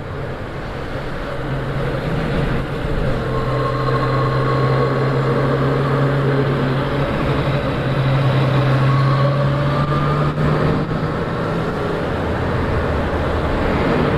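Yamaha MT-09's three-cylinder engine running at a steady town speed, mixed with wind rush, heard through a microphone inside the rider's helmet. It grows louder over the first few seconds, eases briefly about eleven seconds in, then picks up again.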